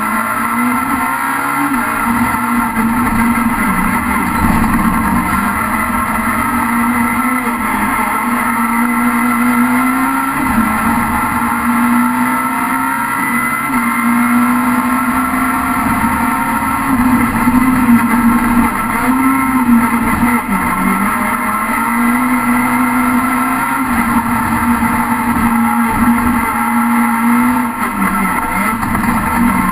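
Rallycross car's engine at full race pace, heard from inside the cabin. It revs up and down through the corners, with brief dips in revs as gears are changed a few times.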